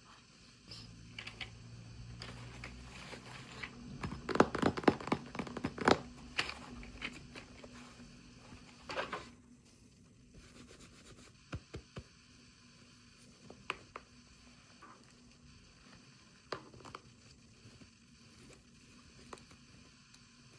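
Toy packaging being handled and opened by hand: scratching, tearing and crinkling, densest in the first third, then a few sharp isolated clicks.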